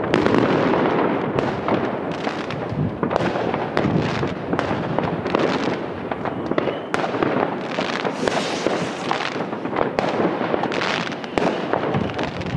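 Many fireworks and firecrackers going off at once: an unbroken crackle thick with sharp pops and bangs, with no pause.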